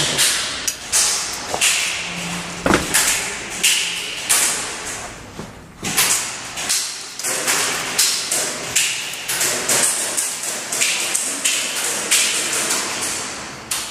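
Footsteps and gear scuffing and knocking over a rubble-strewn concrete floor, an irregular run of knocks about one or two a second.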